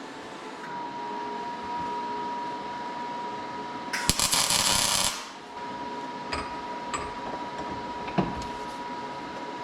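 A brief electric welding arc crackling for about a second while a part is tack-welded, over a steady hum with a thin high whine. A few sharp clicks and knocks follow.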